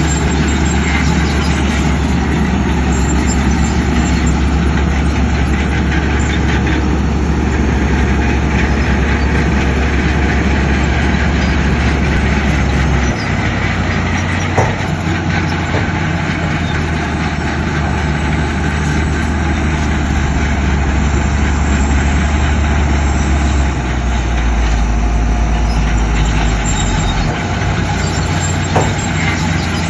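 Heavy diesel earthmoving machinery running steadily under load. The low engine note changes pitch twice, about halfway through and again later, and two sharp metallic clanks stand out.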